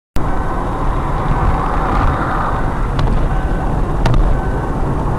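A car driving along a road: a steady low rumble of engine and tyre noise that cuts in suddenly, with a few faint clicks.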